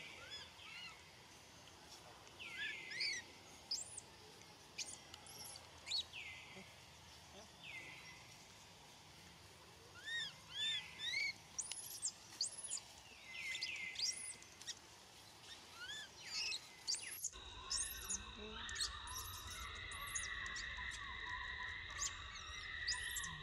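Baby macaque screaming for its mother in repeated short, high squeals that rise and fall in pitch, coming in clusters. About two-thirds of the way through, a steady hum and hiss comes in behind the calls.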